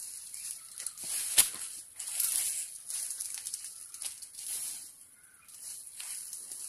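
Dry leaves and plastic litter rustling and crackling in irregular bursts as gloved hands gather rubbish and push it into a woven plastic sack, with one sharp snap about a second and a half in. A steady high hiss runs underneath.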